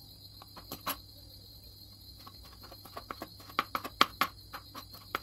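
A kitchen knife chopping tomato on a plastic cutting board: the blade taps the board a few times, then faster and unevenly from about two seconds in.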